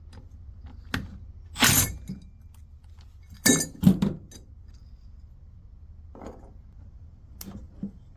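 Small metal parts and tools clinking and clattering in a handful of short bursts as a chainsaw winch's carburetor is taken off and apart, the loudest about a second and a half and three and a half seconds in.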